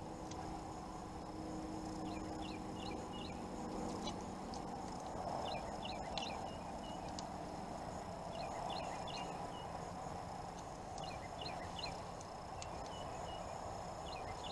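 A small bird singing in the background: a short phrase of four or five quick downward chirps, repeated about every three seconds, over a steady low hiss.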